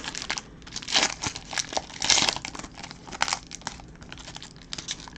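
Shiny foil wrapper of a trading card pack crinkling and tearing as it is pulled open and the cards are slid out, in a run of sharp crackles, the loudest about one and two seconds in.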